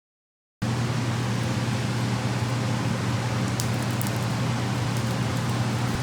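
A home blacksmithing forge running with a steady roar and a low hum, starting abruptly about half a second in.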